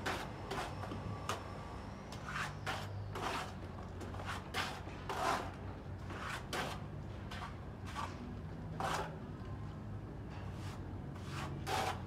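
A plasterer's trowel scraping and tapping against a wall as cement plaster is worked on: about fifteen short, irregular scrapes. A steady low hum runs underneath.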